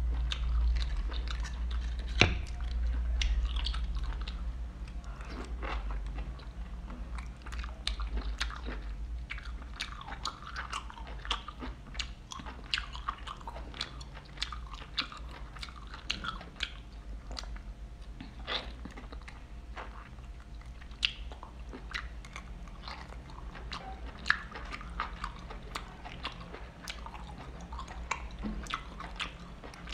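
Chewing and biting of oil-drizzled geoduck clam meat: many short, wet mouth smacks and crunchy clicks, over a low steady hum.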